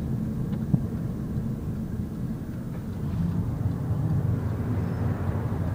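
Steady low rumble of a car on the move, engine and road noise, with a single short knock about three-quarters of a second in.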